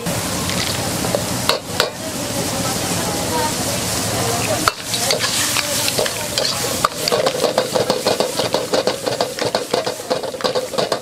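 Fried rice sizzling in a hot wok as it is stir-fried, a metal spatula scraping and knocking against the pan. About seven seconds in, the strokes turn quick and continuous.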